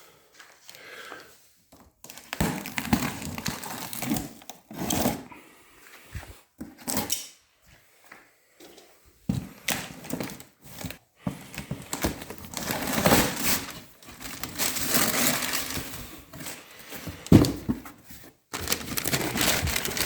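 Cardboard shipping box being cut and pulled open by hand: irregular scraping, tearing and crinkling of cardboard, busier in the second half, with a sharp knock near the end.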